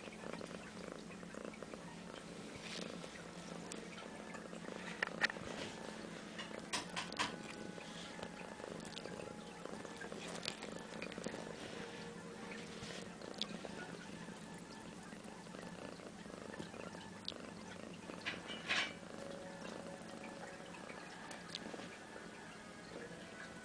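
A cat purring steadily, with a few short sharp clicks scattered through, the loudest about five, seven and nineteen seconds in.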